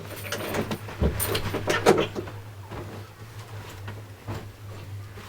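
Scattered knocks and clatters, the loudest a thump about a second in and another just before two seconds, over a steady low hum.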